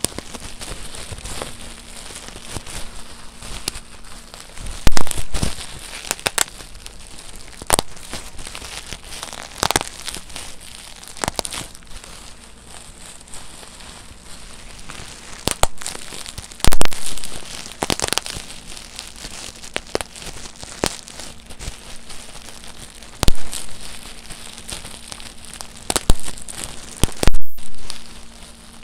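Bubble wrap twisted and squeezed by hand: crinkling plastic with irregular sharp pops of bursting bubbles, a handful much louder than the rest.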